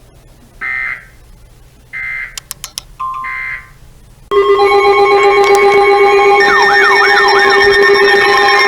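Three short electronic data bursts about a second apart, the Emergency Alert System's end-of-message signal. About four seconds in, a loud electronic alert tone starts: several steady pitches held together, with a brief wavering sweep partway through.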